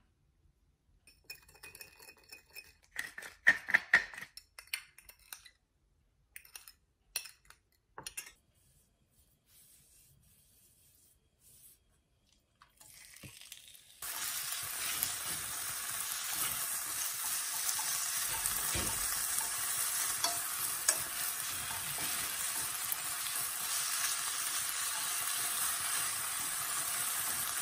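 A metal spoon clinks and scrapes in a small ceramic bowl as a soy-sauce dressing is mixed. About halfway in, thin strips of beef start sizzling steadily in a frying pan as they are stirred with wooden chopsticks.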